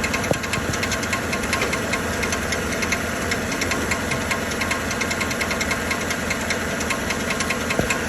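A 2013 Chevrolet Silverado 1500's 5.3-litre V8 idling with a rapid, steady metallic knocking. The knock sounds like a cracked flywheel (flexplate), but it comes from a loose sleeve on the starter's bendix drive rattling.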